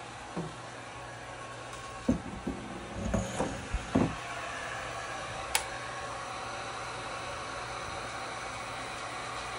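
A few knocks and clatters as a resin-spattered tray is handled and slid into place, then a single sharp click, all over the steady blowing hum of a heat gun.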